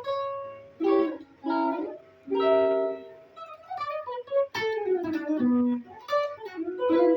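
Guitar played solo: a few plucked chords struck one after another, then quick runs of notes falling in pitch.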